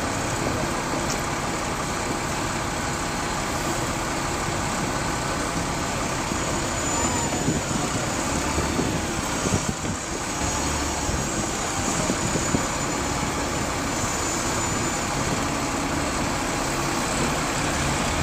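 Double-decker bus engine idling close by at the kerb, over the steady noise of city street traffic.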